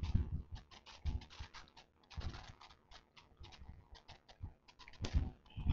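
Faint, irregular clicking and tapping, with a soft low knock about every second early on and another near the end.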